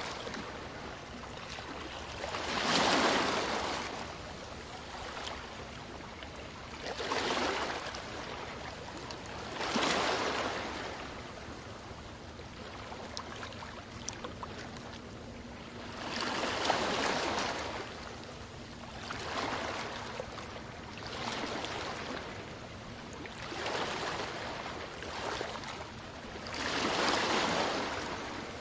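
Small waves washing up on a sandy beach. Each wash of surf swells and fades, every few seconds, over a steady background of water noise.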